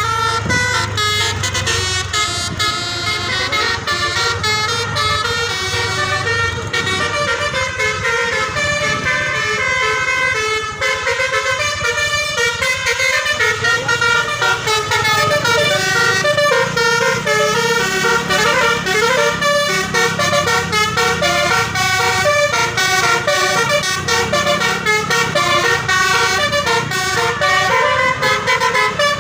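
Bus telolet air horns playing a fast melody, the notes changing several times a second, over the steady low running of the bus engine.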